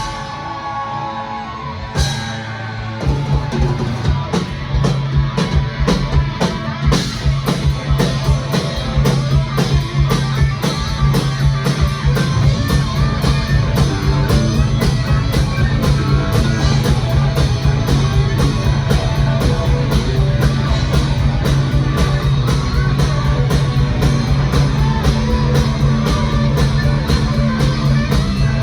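Live rock band with electric guitars, bass and drum kit playing loud. A guitar rings on its own at first, then about three seconds in the full band comes in with a fast, steady drum beat under distorted guitars.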